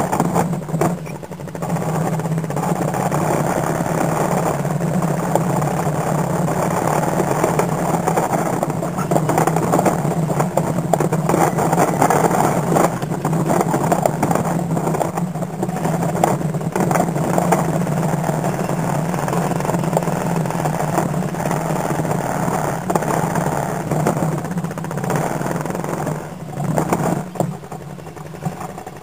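ATV engine running steadily while it tows a tandem-axle trailer over rough ground, with many short knocks and rattles from the steel trailer frame bouncing over bumps and branches. It goes quieter near the end.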